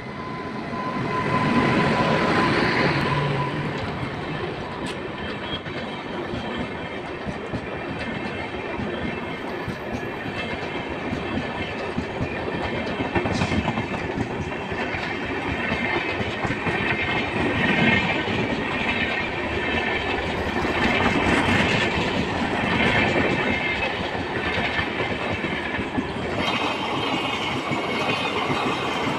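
An Indian Railways WAP-7 electric locomotive passes close by, loudest about two seconds in. A long rake of LHB passenger coaches then rolls past at speed, with steady wheel rumble and rhythmic clickety-clack over the rail joints.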